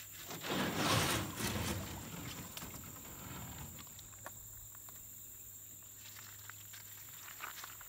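A canoe being rolled over on a sandy bank, its hollow hull scraping and rumbling against the ground; the sound is loudest about a second in and dies away within a few seconds, followed by a few light knocks.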